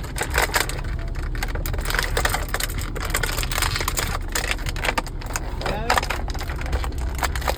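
Plastic toy packaging being worked at by hand to free action figures from their straps, a run of quick clicks and crackles, over a steady low rumble in a car.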